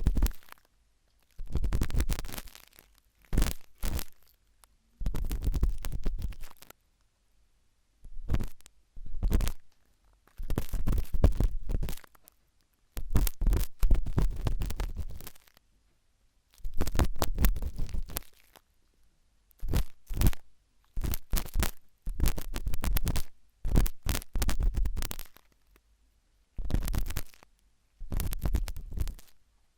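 Sharp toothpick scratching and scraping in an ear for ASMR ear cleaning, in close, rumbling strokes. The strokes come in runs of about half a second to two seconds, with short silent pauses between them.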